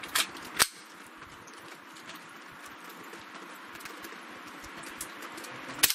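Ruger 10/22 semi-automatic .22LR rifle firing Winchester subsonic rounds: two sharp shots about half a second apart right at the start, then a single shot near the end. Between the shots, rain hisses steadily with faint patters of drops.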